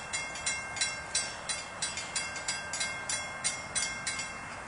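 Railroad grade-crossing bell ringing steadily, about three strikes a second, while the crossing signals are still activated.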